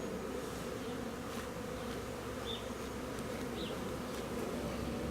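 Many honeybees buzzing around an opened hive, a steady hum.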